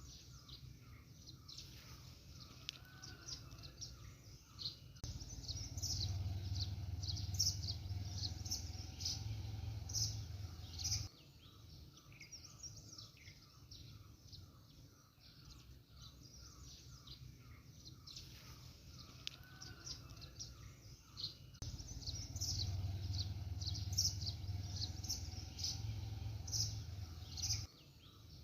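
Small songbirds chirping and twittering with many quick high calls over a steady rhythmic trill. A low rumble comes in twice and lasts several seconds each time.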